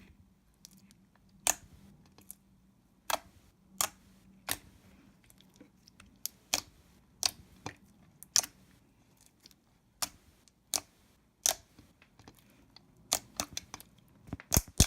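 Thick clear slime with beads being pressed and stretched by hand, giving sharp clicks and pops about once or twice a second. The pops come in a quicker cluster near the end.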